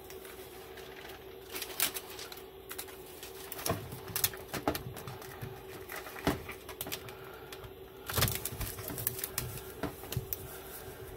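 Foil tape being handled and pressed down by hand onto galvanized sheet-metal ductwork: irregular crinkling crackles and taps, busiest about eight seconds in, over a steady hum.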